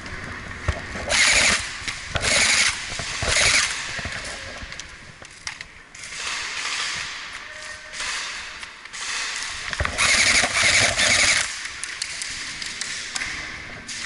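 Airsoft electric guns firing full-auto bursts, the motor and gearbox buzzing: three short bursts about a second apart, then longer bursts.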